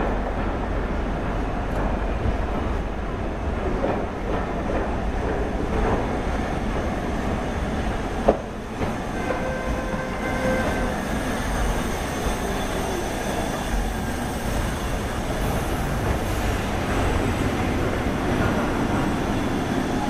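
LMS Jubilee Class three-cylinder 4-6-0 steam locomotive 45699 'Galatea' and its train of coaches running past along the platform: a steady rumble of wheels on the rails, with one sharp click about eight seconds in and a thin squeal from around nine to twelve seconds.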